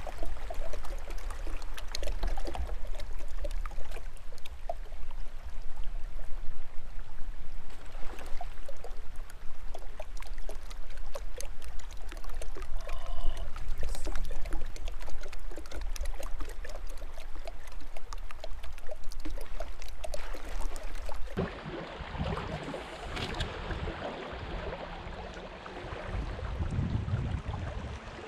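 Fast, shallow river water running over cobbles and gravel and splashing around a wader's legs. Late on it drops to a quieter, steady flow.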